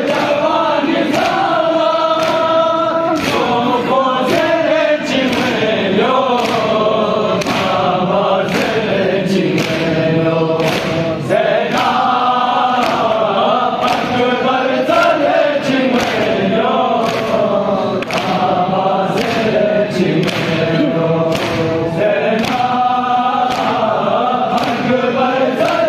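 A crowd of men chanting a noha together, with hands slapping chests (matam) in a steady beat under the singing.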